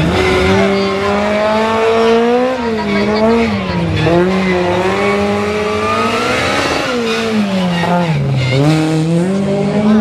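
Rally car engine revving hard through a tight stage. The pitch keeps rising and falling with throttle and gear changes, dropping lowest about eight seconds in before climbing again.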